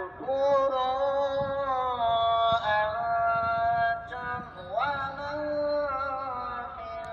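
A solo voice chanting in a long, melismatic style, holding each note for a second or more and sliding up and down between them, with no accompaniment.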